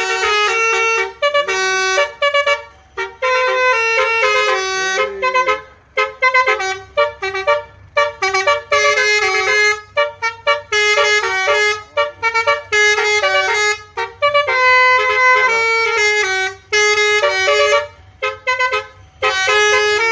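Telolet bus horn, a bank of musical air horns, playing a quick stepping melody of short and held notes in repeated phrases with brief gaps between them.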